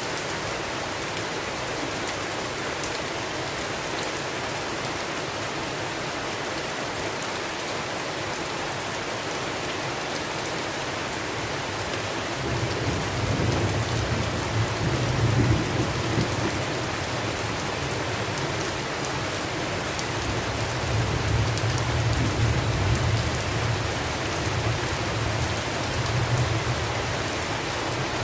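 Steady rain hissing as it falls on a surface. About halfway through, a deep rumble of thunder rolls in and swells twice before easing.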